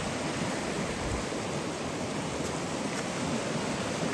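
Steady rushing of a fast-flowing, flood-swollen river running over gravel and debris.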